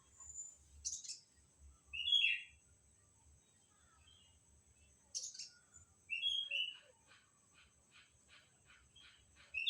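A bird chirping: single short high chirps and falling sweeps a few seconds apart, then, over the last few seconds, a quick run of clipped notes, about five a second.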